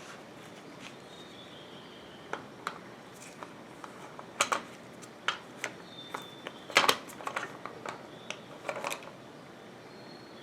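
Dishwasher rack and rack adjuster parts being handled, giving a scattered run of sharp clicks and knocks that starts about two seconds in and is loudest around the middle.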